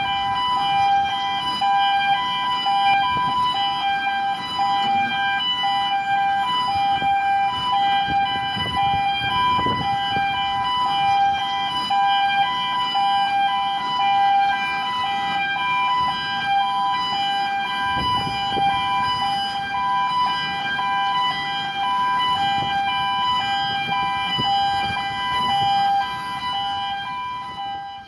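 Gantry crane's warning siren sounding continuously: a steady high two-tone alarm, one of its tones breaking on and off, over a low rumble. It fades out at the end.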